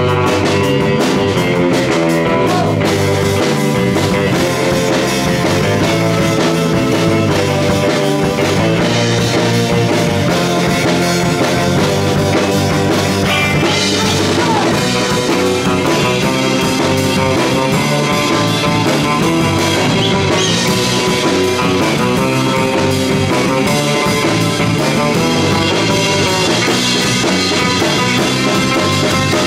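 Live garage-surf rock band playing loudly and without a break: electric guitar over bass and a drum kit.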